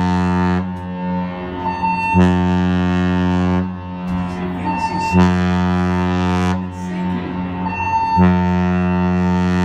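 Cruise ship's horn sounding the muster (general emergency) signal: deep blasts of about a second and a half, one every three seconds. The blast that starts about 8 seconds in is held on, as the long blast that closes the signal.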